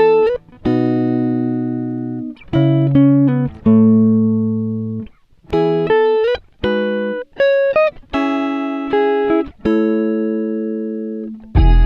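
Background music: plucked guitar notes and chords, each struck sharply and left ringing until it fades, some sliding up in pitch. No singing.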